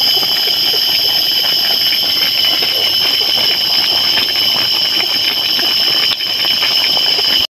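Chicken pieces sizzling and bubbling in the last of their broth in a black wok on a traditional clay stove, a dense steady crackle as the liquid cooks down. Two steady high-pitched tones run over it.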